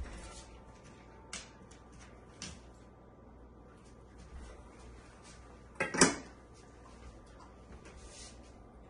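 A few small clicks, then about six seconds in a loud clank as a metal dog bowl is set down into a raised feeder stand.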